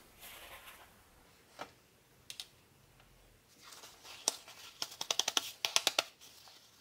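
Small wet plastic bearing-carriage parts being picked from a tub and patted dry with a paper towel on a tabletop: scattered light taps and paper rustling, then a quick run of light taps about five seconds in.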